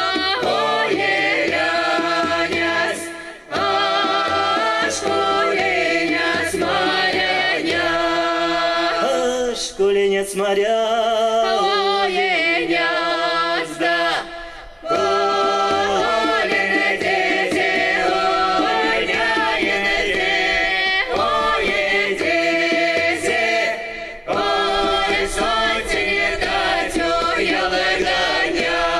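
Mordovian folk song sung in harmony by male and female voices, backed by a small band of hand drum, violin and bass guitar, with three short breaks between phrases.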